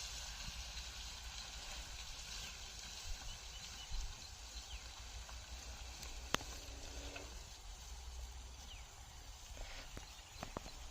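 Outdoor field ambience with a low rumble, a few faint high chirps, and a sharp click about six seconds in, followed by a few more clicks near the end.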